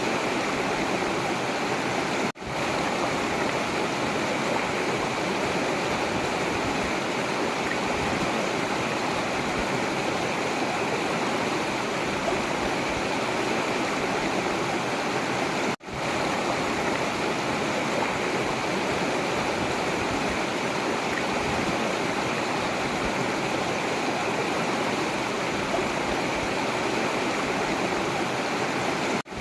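Steady rushing and gurgling of a forest river's flowing water. The sound cuts out for an instant and swells back three times: a few seconds in, around the middle, and at the end.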